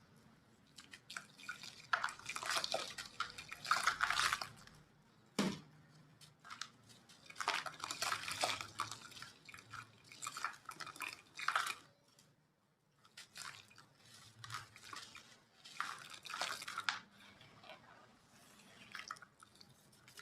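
Small gritty chunks of white cement being crumbled, a crisp crunching and crackling in bursts of a second or two with brief pauses between them. A single sharp click comes about five and a half seconds in.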